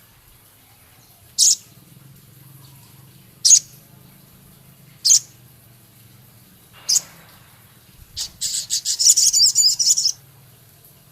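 Male crested jay (sogon) calling: four short high calls about two seconds apart, then a fast, rough rattling chatter lasting about two seconds near the end.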